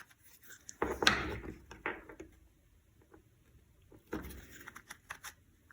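Small parts of a toy RC car being pressed and fitted together by hand: light clicks and scrapes in two short bouts, about a second in and again about four seconds in.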